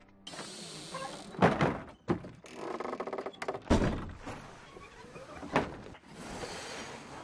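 About four heavy thunks, with clattering and a hissing noise between them.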